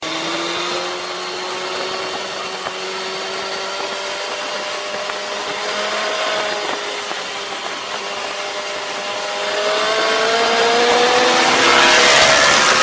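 Motorcycle engine running at high revs, its pitch climbing slowly as it accelerates, growing louder over the last few seconds.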